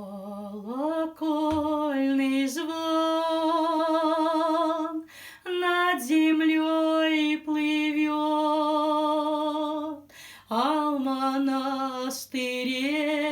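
A woman singing a slow, wordless melody, long held notes with vibrato, each phrase gliding up into its first note, with short breaths between phrases about five, ten and twelve seconds in.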